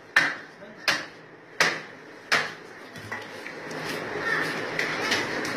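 A butcher's chopper striking through meat and bone of a slaughtered animal's carcass: four sharp chops about 0.7 s apart, then the chopping stops and a steady background din rises.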